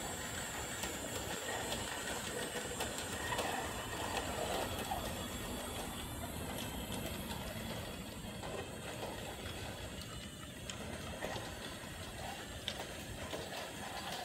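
Disney Monorail Playset toy monorail trains running along their plastic beam track: a steady small motor and gear whir with scattered light clicks.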